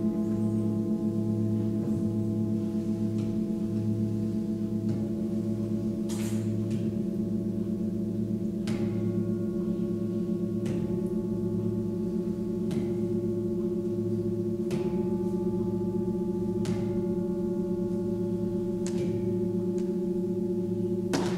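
Tibetan seven-metal singing bowls ringing together in a layered, sustained drone with a slow pulsing waver. A bowl is struck about every two seconds, each strike adding a fresh ring over the drone.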